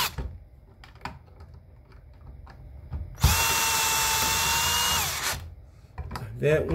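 Power drill driving a switch mounting screw into a plastic electrical box: a few light clicks, then, about three seconds in, a steady whine for about two seconds that winds down as the drill stops.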